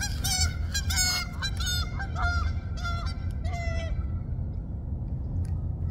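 A flock of geese honking, many overlapping calls that thin out and fade away about four seconds in, over a low steady rumble.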